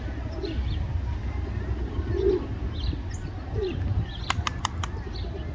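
Pigeons cooing, three low coos, with sparrows chirping in short high notes. Four quick sharp clicks come together a little after four seconds, over a steady low rumble.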